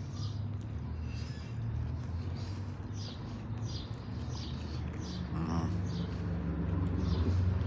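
A small bird chirping repeatedly in short, high chirps every half second or so, over a low rumble of street traffic that grows louder near the end.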